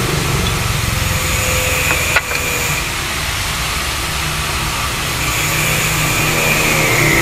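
A steady low motor-like drone with a hiss above it, and one sharp click about two seconds in.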